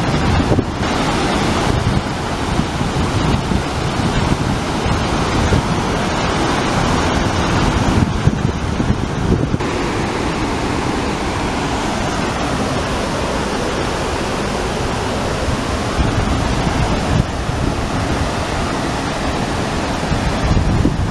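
Large waterfall rushing steadily, with wind buffeting the microphone in gusts.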